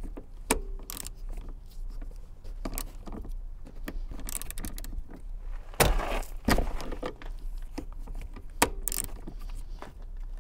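Ratchet wrench and socket tightening a car seatbelt anchor bolt: irregular clicks of the ratchet and metal clinks, busiest about six seconds in.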